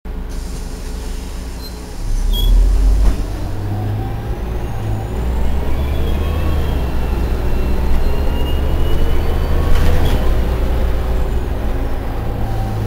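Cabin sound of a 2003 Irisbus Agora L CNG city bus under way: the steady low rumble of its Renault MGDR natural-gas engine, with rising whines as the bus gathers speed. It gets louder about two seconds in, and there is a brief hiss about ten seconds in.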